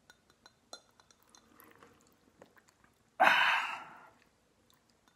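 Drinking water through a cheek retractor that holds the mouth open: small wet clicks and slurps, then about three seconds in a short, loud, noisy splutter as water spills out of the open mouth.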